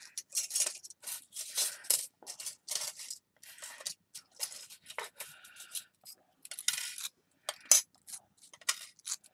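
Thin antique-bronze iron filigree pieces clinking and scraping against one another as they are handled and shuffled, an irregular string of light metallic clinks and scrapes.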